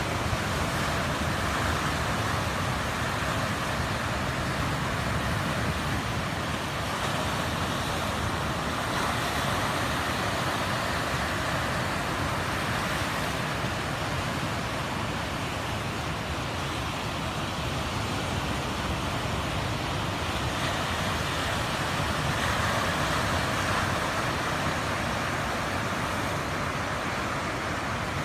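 Ocean surf breaking on a beach: a continuous rushing wash that swells and eases slowly as waves come in.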